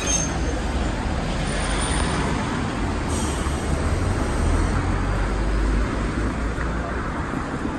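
Steady city street traffic noise: cars passing, with a deep rumble that swells a little around the middle.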